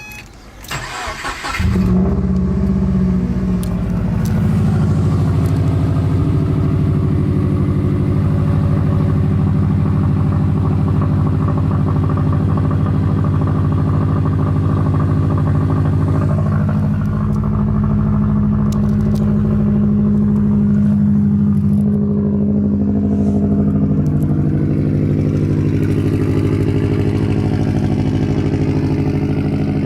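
Subaru WRX's turbocharged EJ255 flat-four cold start: the starter cranks for about a second, then the engine catches and runs steadily at cold idle.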